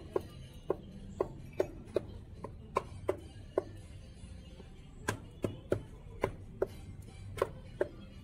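Steel cleaver chopping fried fritters and fried tofu on a cutting board: sharp, separate chops about two a second, with a pause of a second or so midway.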